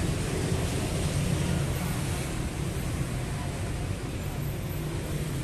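Steady street traffic noise: a low, even rumble of road traffic on the adjoining road.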